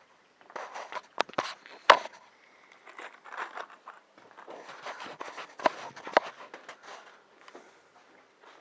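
Footsteps and handling noises, with a few sharp knocks, the loudest about two seconds in.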